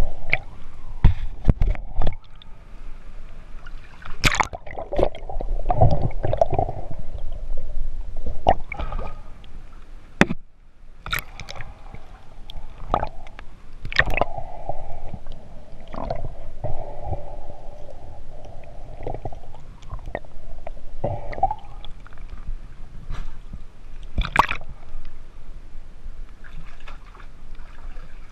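Water gurgling and sloshing around a camera held underwater, broken by scattered sharp clicks and knocks.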